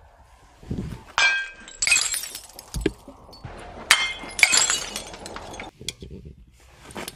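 A small glass jar full of water beads and glitter smashes against a brick wall, and the glass shatters with a crunchy, tinkling spray of shards and beads. The crashes come twice in quick succession about a second in, and twice more about four seconds in.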